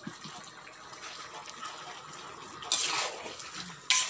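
Curry bubbling and hissing in an iron kadai over a wood fire. Near the end a spatula stirs it, with two loud scraping strokes against the pan.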